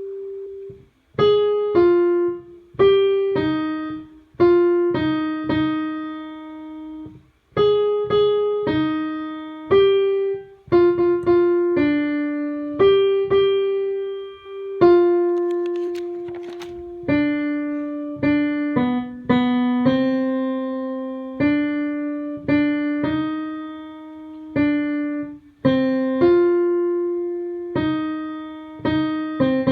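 Piano playing an alto choir part as a rehearsal line: one note at a time, sometimes two together, in the middle register. Each note is struck and then dies away, with short breaks between phrases.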